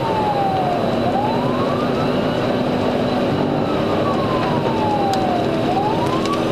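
Police cruiser's siren wailing, its pitch sliding slowly down and then sweeping quickly back up, twice, over loud steady road and wind noise as the car drives at high speed in pursuit, heard from inside the cruiser.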